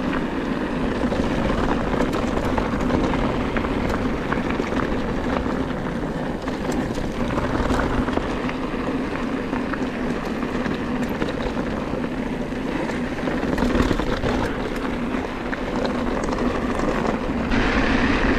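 Wind rushing over the microphone and knobby mountain-bike tyres rolling fast over loose stony ground on a descent, with scattered small clicks and rattles from stones and the bike.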